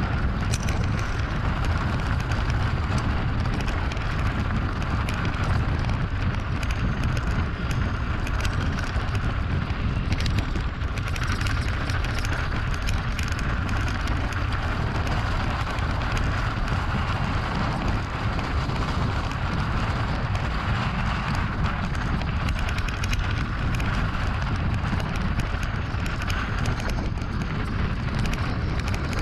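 Mountain bike riding over rough, stony ground: steady tyre noise with many small rattles and clicks, and wind rumbling on the action-camera microphone.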